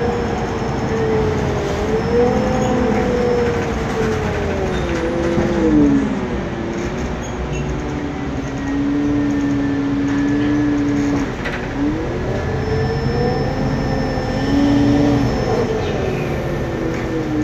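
MAN Lion's City CNG articulated bus heard from inside the passenger cabin while moving: a loud whine, which the uploader puts down to a noisy cooling fan, sliding down and back up in pitch several times as the bus changes speed, over steady engine and road rumble.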